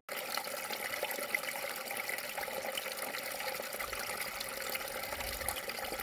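Mountain stream water running over rocks: a steady, even rush of flowing water.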